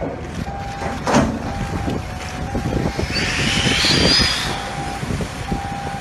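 A shipping container sinks beside a quay. Water churns and hisses as trapped air escapes from it, swelling about three seconds in and fading a second and a half later. Underneath is a steady low rumble, with an on-off beeping tone throughout.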